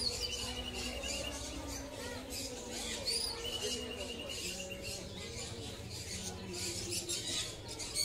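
Caged birds chirping and squeaking, with two rapid trills of about a second each, one at the start and one about three seconds in, over a low murmur of crowd voices.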